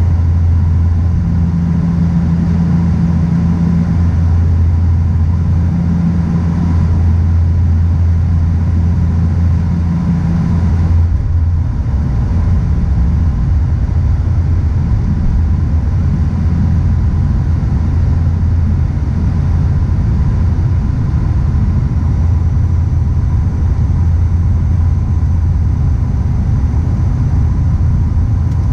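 Cabin drone of a Dash 8 Q400's Pratt & Whitney PW150A turboprops and six-bladed propellers on approach, a loud, steady low hum. A slow throbbing beat in the first part evens out about eleven seconds in, around when the main landing gear comes down.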